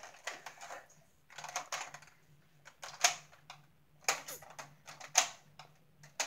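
Light, irregular plastic clicks and clacks from a toy Nerf foam-dart blaster being handled and worked, a few sharp ones about a second apart.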